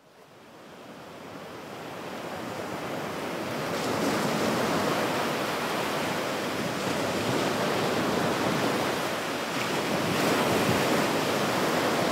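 Sea surf breaking on a beach, with wind, fading in over the first few seconds and then steady.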